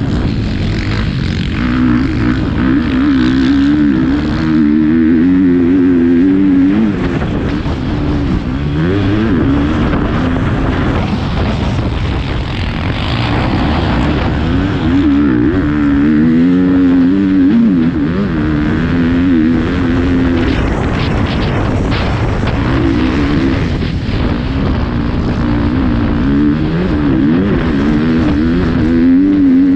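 Motocross bike engine heard from on board while riding a dirt track, revving up and falling back again and again with the throttle and gear changes.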